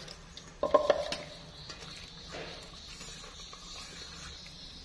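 Silicone spatula stirring wet flour batter in a stainless steel bowl: soft scraping and wet sloshing, with a brief louder knock against the bowl about a second in.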